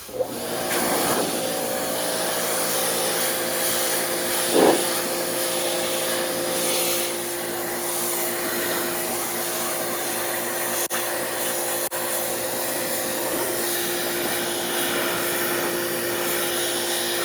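Electric pressure washer running steadily, its motor hum under the hiss of the spray on the trunk carpet, with one brief louder surge about four and a half seconds in.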